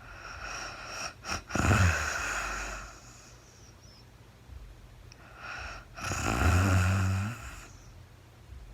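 A woman snoring in her sleep: two snoring breaths about five seconds apart, the first starting with a couple of sharp clicks and falling in pitch, the second longer and steadier.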